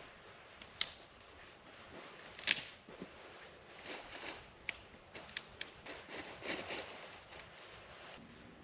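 Camp gear being handled while a cooking spot is set up: scattered sharp clicks, light knocks and short rustling scrapes, the loudest a sharp click about two and a half seconds in and a quick run of clicks in the middle.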